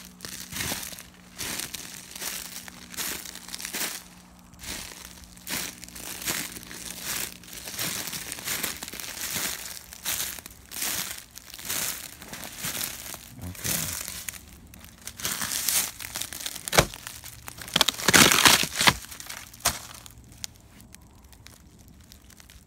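Footsteps crunching through dry leaves and brush, a step roughly every half second to second. Near the end comes a louder crunching for about two seconds.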